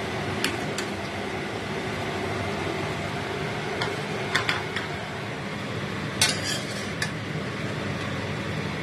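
Metal utensil clinking and scraping against a stainless steel wok and plate as cooked napa cabbage is served out, over a steady hum. There are a couple of sharp clinks about half a second in, a few more around four to five seconds, and a cluster around six to seven seconds.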